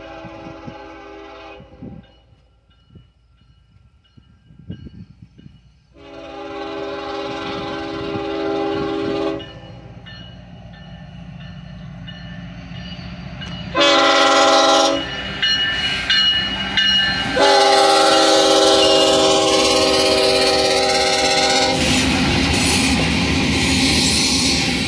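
Union Pacific diesel freight locomotive horn sounding a series of blasts, long ones with a shorter one between, over the growing rumble of the approaching engines. Near the end the horn stops and the coal train's hopper cars rumble and clatter past close by.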